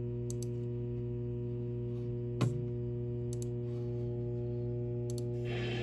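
Steady low electrical hum with evenly spaced overtones from a VHS tape playback, with a few faint clicks and one louder click about two and a half seconds in, in the silent gap between trailers.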